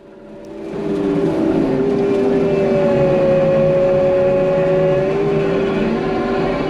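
Kioti compact track loader running hard, its engine and hydraulics coming up to high revs about a second in and then holding a steady, loud drone with a whine that wavers slightly in pitch.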